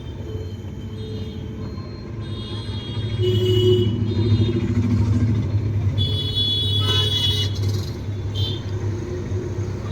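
Sewing machine running as it stitches cloth: a steady mechanical hum that grows louder about three seconds in, with a thin high whine over it, and eases a little near the end.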